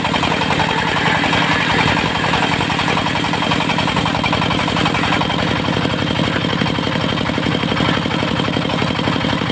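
Diesel engine of a portable circular sawmill running steadily with a fast, even beat.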